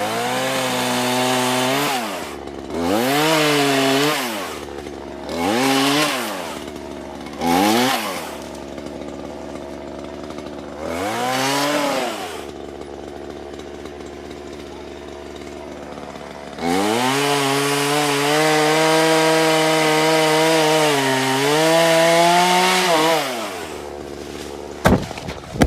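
Chainsaw engine revved in a series of short bursts, dropping back to idle between, then held at high revs for about six seconds before falling back to idle. A few sharp clicks near the end.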